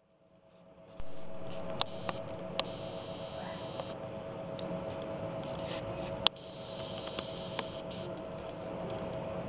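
Steady hum of a running machine with a constant mid-pitched whine. It comes in faintly and rises over the first second, then is joined by a few sharp clicks, the loudest about six seconds in.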